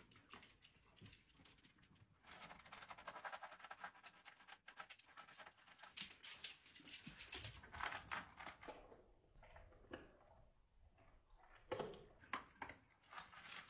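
Small dogs eating and drinking at their bowls: a faint, fast run of clicks and crunches. Near the end, a few sharper crunches of a dog chewing dry kibble.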